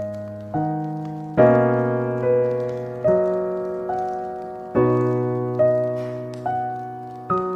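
Slow, gentle solo piano: single notes and chords struck a little under once a second, each left to ring and fade before the next.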